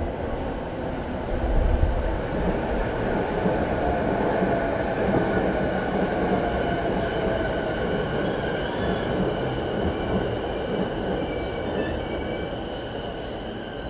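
Electric commuter train running along the station platform: a steady rumble of wheels on rail with a faint sliding whine and thin high squealing tones, easing off near the end.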